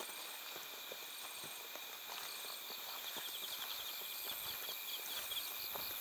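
A chorus of insects chirping, with steady high trills. A faster pulsing chirp grows stronger about halfway through. Faint footstep scuffs are heard now and then.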